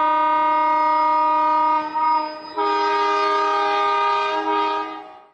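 Nilgiri Mountain Railway toy train sounding its horn: a long held blast, a brief break, then a second long blast on a different note that fades away.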